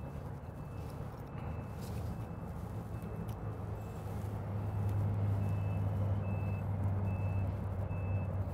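Vehicle reversing alarm beeping at an even pace, one tone repeated, over the low steady hum of an engine that grows louder about halfway through.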